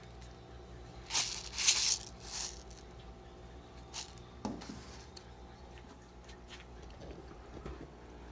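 Handling noise from a paper cup noodle cup: a few short rustles and scrapes about a second in, then a sharp click and a dull knock, over a faint steady hum.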